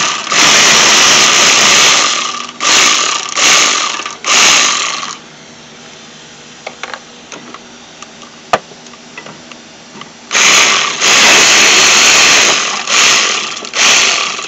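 Cordless power ratchet running in bursts as it spins out the rear brake caliper bracket bolts. A run of about two seconds is followed by three short spurts; after a pause of about five seconds with a few small clicks, there is another group of short and longer runs.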